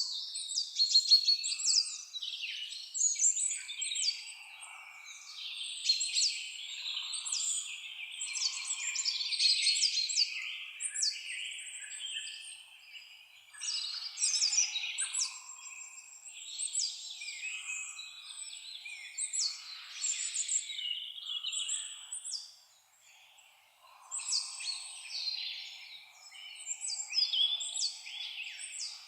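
Several songbirds singing and calling together in a forest dawn-chorus style: overlapping high chirps, quick trills and whistled phrases, with a short lull a little past the middle.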